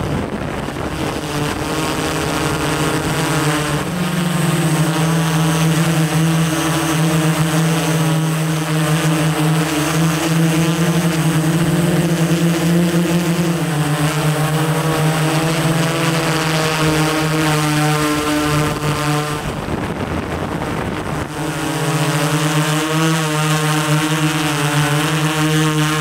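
A DJI S800 hexacopter's six propellers humming steadily, picked up by the camera mounted on it. The pitch steps up slightly about four seconds in. Near twenty seconds in, the hum gives way to a rushing noise for a couple of seconds, then returns.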